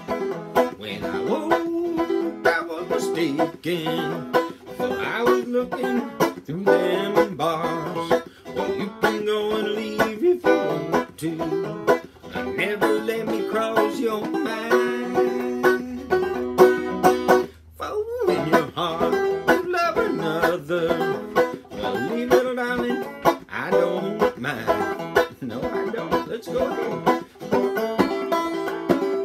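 Five-string banjo played clawhammer (frailing) style in open G tuning, a steady run of picked and brushed notes, with a brief drop in loudness about eighteen seconds in.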